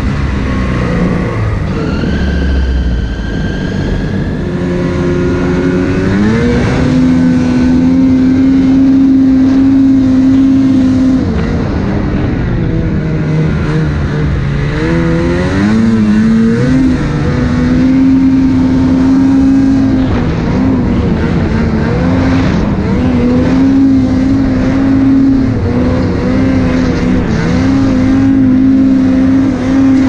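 2020 Lynx Boondocker snowmobile's two-stroke engine under heavy throttle in deep powder: it revs up about six seconds in and holds high, sags for a few seconds near the middle, then climbs again with several brief dips as the rider works the throttle.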